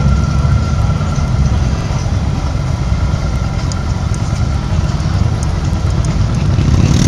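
Motorcycle and car engines idling and running at walking pace in slow parade traffic, with a steady low, pulsing engine note throughout.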